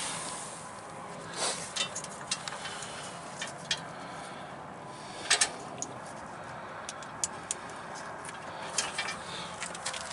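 Scattered clicks and knocks of plastic clips being pushed and snapped into a heavy-duty truck's side fairing, the loudest a quick pair of snaps about five seconds in.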